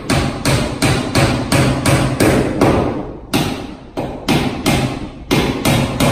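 Hammer blows at the top of a door frame being fitted: a steady run of sharp strikes, about three a second, with brief pauses about three and five seconds in.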